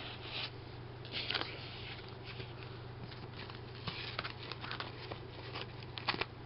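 Rustling and handling of cardboard packaging as a box is opened, with scattered light clicks and taps over a steady low hum.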